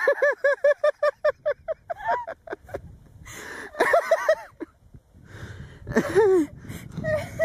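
A person laughing hard: a fast run of short 'ha' bursts for about two seconds, then further bursts of laughter with breathy gasps between.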